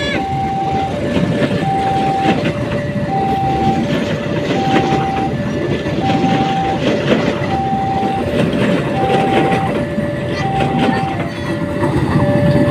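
Train passing with wheels clattering over the rails, while a level-crossing warning alarm sounds an alternating high-low two-tone signal, about one pair every second and a half.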